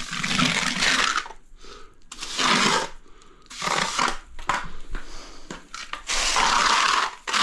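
Hand tool scraping across a hard surface in four separate strokes, each about a second long, with short pauses between.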